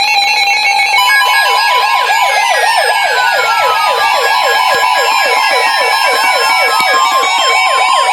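Several NOAA weather radio receivers sounding their alarms together, signalling a new warning (a flash flood warning) being broadcast. A steady alarm tone comes in about a second in, over a fast siren-like warble that swoops three to four times a second, with a tone that slowly falls in pitch.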